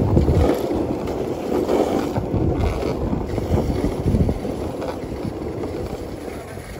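Dogsled moving over a packed snow trail behind a husky team: a steady rumbling scrape of the runners on snow, broken by frequent low bumps and knocks, with wind on the microphone.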